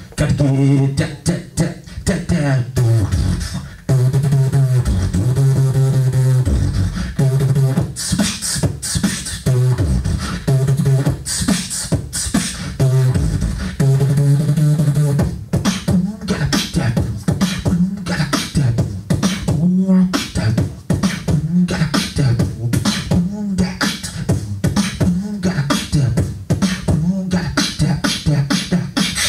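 Beatboxing into a handheld microphone: a sustained humming bass line under quick kick and snare strokes, with a hummed melody over it and hissing hi-hat-like sounds around 8 and 12 seconds in.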